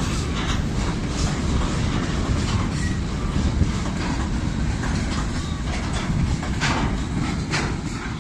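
A train rolling past at steady loudness, with a continuous rumble of the wagons and the clatter of wheels over rail joints.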